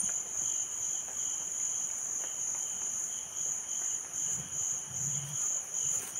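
Steady, high-pitched insect trill, a continuous chorus that pulses slightly without a break.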